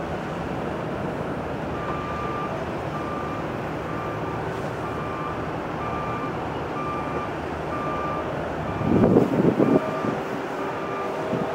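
A reversing alarm beeping about twice a second, starting about two seconds in, over a steady rumble of airport and engine noise, with a louder rumbling swell about nine seconds in.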